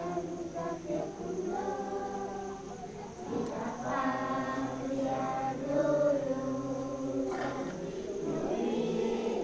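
A large group of children singing together, holding long notes; the singing gets louder about three and a half seconds in.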